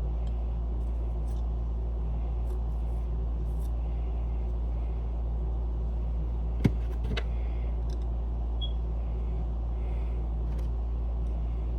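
Steady low machine hum from the shop, with a sharp click about two thirds of the way through and a softer one just after, typical of small metal parts and a wrench being handled while the chime rod's washer and nut go back on.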